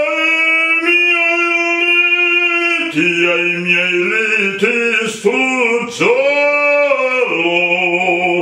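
A man singing in full operatic voice: one long held note for about three seconds, then a phrase of shorter notes, then more held notes until the singing stops at the end.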